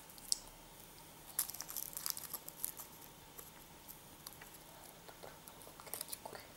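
Foil wrapper of a Kinder Surprise chocolate egg crinkling as it is peeled off by hand: faint, scattered crackles and clicks, busiest between one and three seconds in.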